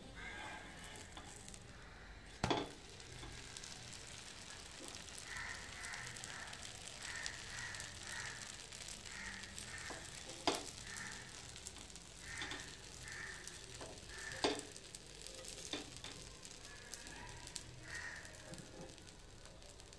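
Dosa batter sizzling on a hot cast-iron tawa, with a steel spatula knocking sharply against the pan three times and scraping under the dosa.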